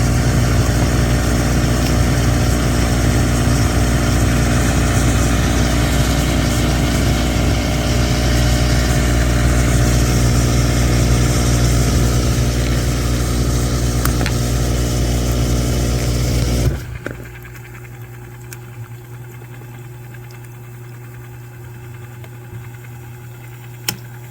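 Whirlpool dishwasher running a test cycle after repair: the newly installed recirculation pump motor hums steadily under the rush of spraying water. It cuts off suddenly about 17 seconds in, leaving a fainter steady hum, and a single click sounds near the end.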